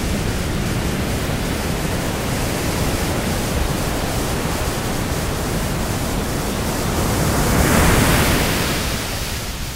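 Steady rushing noise with no tone or rhythm in it, swelling up and falling away once near the end.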